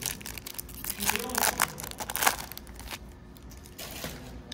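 Trading card pack wrapper crinkling and tearing as it is ripped open by hand: a run of sharp crackles for about the first three seconds, loudest in the middle, then quieter handling.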